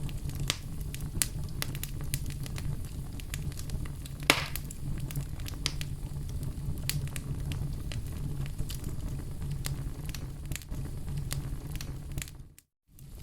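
Campfire crackling: a steady low rumble of burning wood with many sharp snaps and pops, one louder pop about four seconds in. The sound dips briefly to silence near the end, then comes back.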